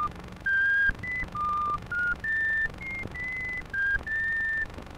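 A string of about nine high, pure whistle-like tones, one at a time, each held for a fraction of a second and stepping up and down in pitch like a simple tune.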